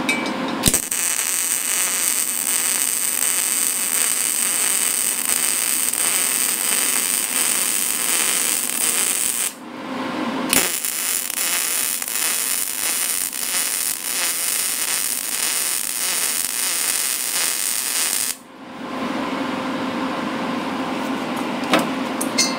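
Wire-feed (MIG) welding arc crackling steadily on steel, in two runs of about eight to nine seconds each with a short break between them. The arc stops about three-quarters of the way through.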